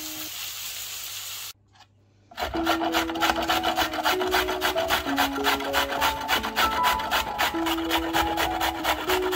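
A carrot being grated on a stainless-steel box grater: quick, even rasping strokes, roughly five a second, starting about two and a half seconds in. Before that, onions sizzle in oil in a frying pan, cutting off abruptly about a second and a half in.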